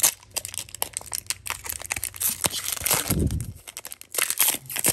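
Foil Pokémon booster pack wrapper being handled and torn open, crinkling and crackling, with a louder tear near the end and a short low thump about three seconds in.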